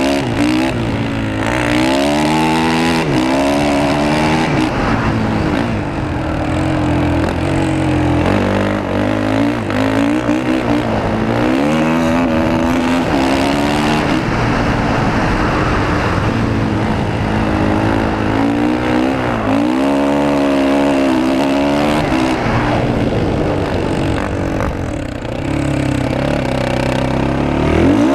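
Engine of the vehicle carrying the camera, revving up and easing off again and again, its pitch rising in repeated sweeps every few seconds as it accelerates and slows, over a steady rush of wind on the microphone.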